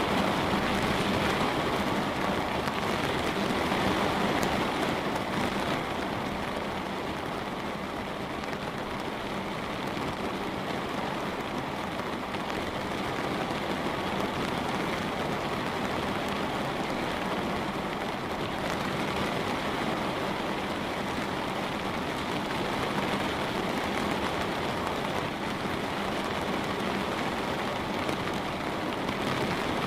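Light rain on a window: a steady patter of many small drops, slightly louder for the first few seconds.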